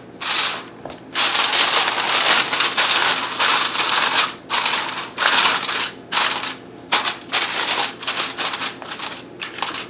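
Aluminium foil crinkling and crackling as it is laid over a baking dish and crimped down around the rim by hand, in a long run of loud crackle and then shorter bursts with brief gaps, growing fainter near the end.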